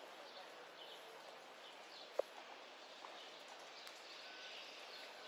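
Faint outdoor ambience with scattered distant bird chirps, and one short sharp tick about two seconds in.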